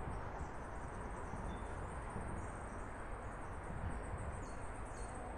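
Steady outdoor background noise with a few faint, brief high bird chirps.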